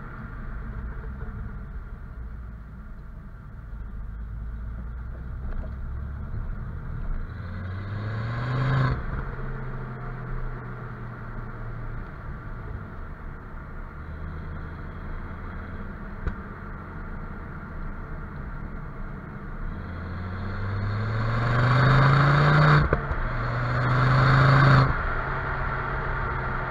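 2007 Ford Focus ST's turbocharged five-cylinder engine heard right at its stock exhaust tailpipe while driving: a steady cruising note, a rising pull about eight seconds in that cuts off sharply, then near the end two louder pulls in quick succession, each rising in pitch and cut off sharply.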